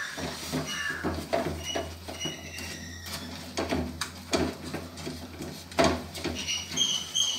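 Wooden spatula stirring and scraping thick ragi kali (finger-millet dough) around a steel pan, with irregular scrapes and soft knocks; the kali has cooked down thick and is nearly done. A low steady hum runs underneath.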